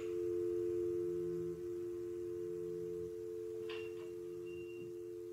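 Electric guitar with two notes struck together and left ringing as one steady, sustained tone that fades slowly. A small click comes a little under four seconds in.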